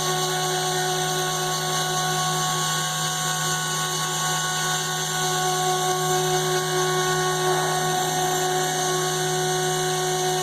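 CNC router spindle running steadily, a constant whine over a hiss.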